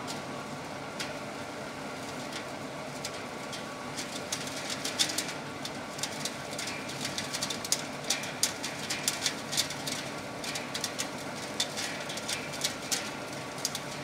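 Feed pellet plant machinery running with a steady hum and faint whine, while pellets clatter and tick onto sheet metal, the ticks getting denser from about four seconds in.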